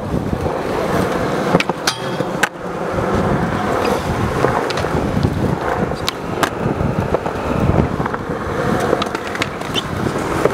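Skateboard wheels rolling over concrete with a steady rumble, broken a few times by sharp clacks of boards popping and landing.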